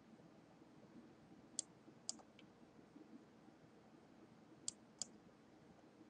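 Computer mouse clicking: two pairs of sharp clicks, about a second and a half in and again near the end, against near silence.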